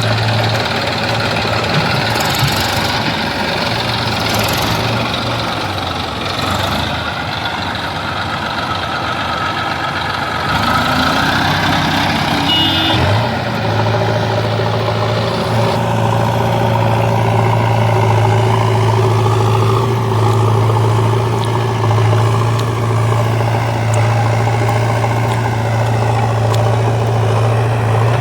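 Heavy diesel engine running steadily, with a rise in pitch about midway as it revs up, then holding a stronger, even drone.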